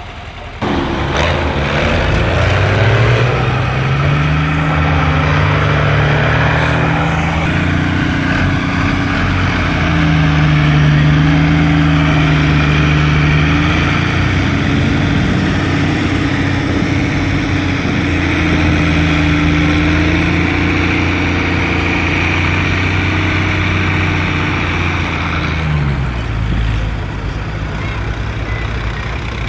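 Tractor engine running close by. Its pitch climbs as it revs up about a second in, holds steady, then drops near the end.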